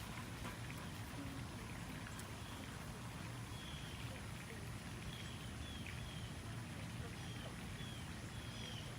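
Steady background hiss with a low rumble, and from about a third of the way in, short high chirps repeating every second or so, like a small bird calling.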